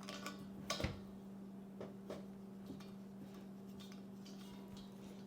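A few faint clicks and knocks from handling the heater's gas hose and regulator fitting as it is hooked up to the propane bottle, over a steady low hum.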